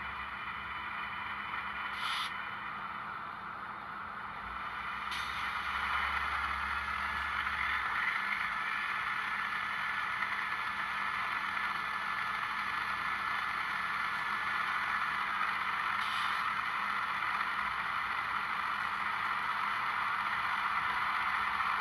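Sound decoders in N scale Tier 4 GEVO model locomotives playing the GE diesel prime mover sound through their tiny onboard speakers, notching up: the engine sound grows louder about four to six seconds in and then runs steadily.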